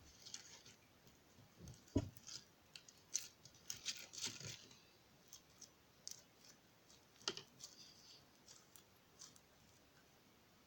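Clear slime made of glue and activator being worked and kneaded by hand: faint, irregular sticky clicks and squelches, with a few louder snaps about 2 s and 7 s in.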